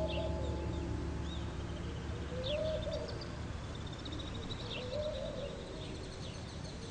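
A dove cooing, a short call repeated about every two and a half seconds, with small birds chirping.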